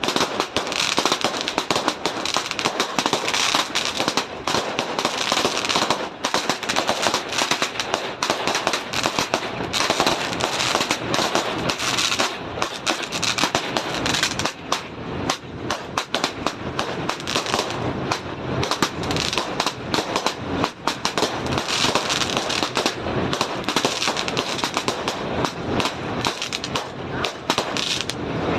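A long string of firecrackers going off in a rapid, continuous crackle of sharp bangs.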